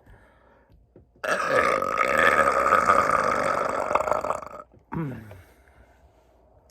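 A man's long, loud burp lasting about three seconds, followed by a short falling vocal grunt.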